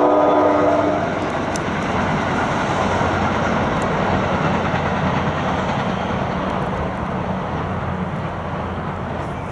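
Passing train: a horn chord of several steady tones ends about a second in, followed by the train's steady, loud rumble as it goes by.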